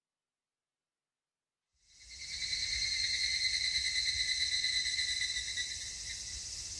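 Chorus of cicadas calling steadily in a high, fluttering drone. It fades in about two seconds in after total silence.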